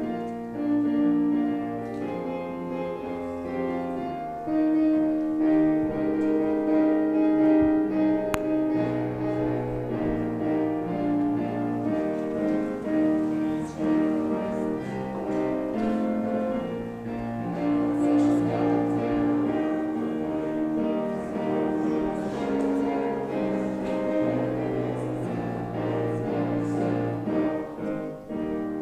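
Piano playing a hymn tune as the introduction before the congregation starts to sing.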